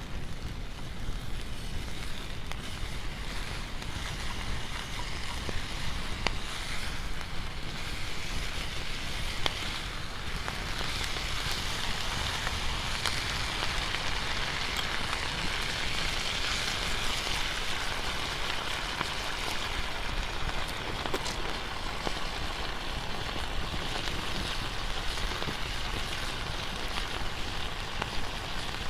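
Waves washing on the beach and wind on the microphone, a steady hiss and rumble that swells for several seconds mid-way, with scattered small crackles from a campfire.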